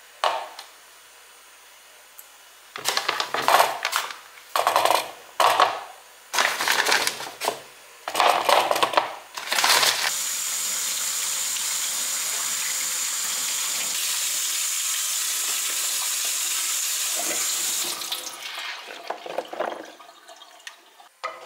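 Potatoes dropped one after another into a plastic bowl, a string of knocks and clatters over several seconds. Then a kitchen tap runs steadily for about eight seconds to rinse them in a colander at a stainless-steel sink, followed by some softer handling noise as it stops.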